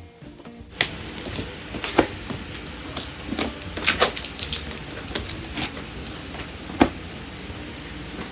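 Packaging being handled: irregular knocks, clicks and rustling as items are taken from a keyboard's box.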